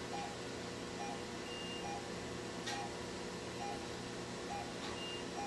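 Operating-room patient monitor sounding its pulse tone: a short mid-pitched beep about once a second, one with each heartbeat, over a steady hum of room equipment. Two brief higher beeps come in, one early and one near the end.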